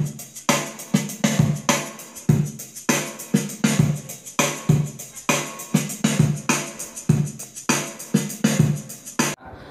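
Channel intro music with a steady drum-machine beat, the strikes coming about two to three a second, cutting off suddenly near the end.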